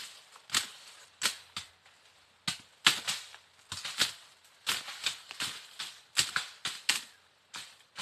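Machete hacking through tall grass and brush: a run of sharp, irregular chops, about two a second, some coming in quick pairs.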